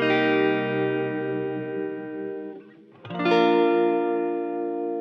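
Song intro on electric guitar with an effects sound: a chord struck at the start and another about three seconds in, each left to ring and slowly fade.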